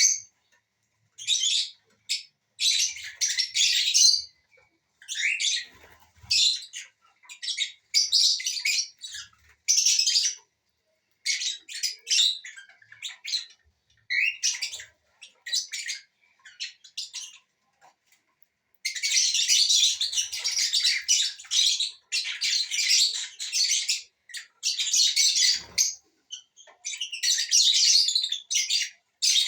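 Small parrots (lovebirds, with cockatiel and Indian ringneck parakeet) chirping and squawking in fits of shrill chatter that come and go, then run almost without a break through the second half.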